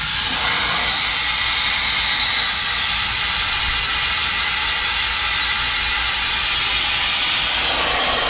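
Venturi-type coolant vacuum filler driven by shop compressed air, giving a steady, obnoxious hiss as it pulls vacuum on the cooling system. The hiss fills out lower in tone near the end.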